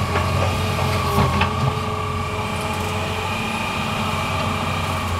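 Hitachi Zaxis 350 excavator's diesel engine running steadily under load while the bucket digs into a coal pile, with a faint steady whine above it. A couple of short knocks sound between one and two seconds in.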